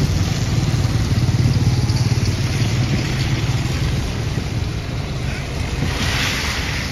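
Street traffic: vehicle engines running and passing cars on a wet road, a steady low hum under an even hiss.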